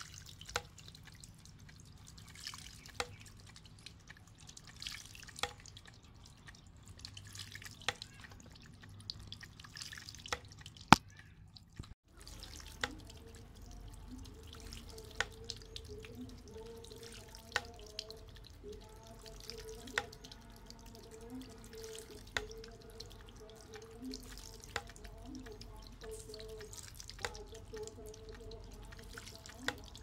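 Small bamboo water fountain running: a soft steady trickle and splash of water falling from bamboo spouts into a bowl of pebbles, with a sharp knock about every two and a half seconds as the rocking bamboo tube tips. One much louder click sounds just before the midpoint.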